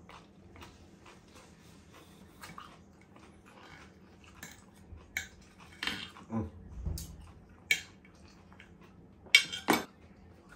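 Close-miked mouth sounds of chewing, soft scattered clicks, then a metal knife and fork cutting steak on a ceramic plate: scrapes and clinks from about halfway, with the loudest clinks near the end.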